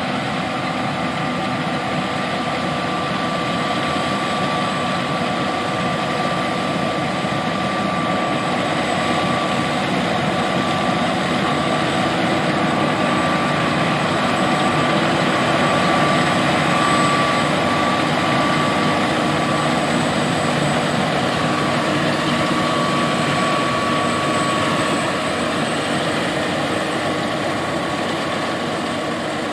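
John Deere S780 combine harvester running while harvesting soybeans: a steady engine and threshing-machinery drone with a high, steady whine over it, growing a little louder toward the middle and easing off near the end.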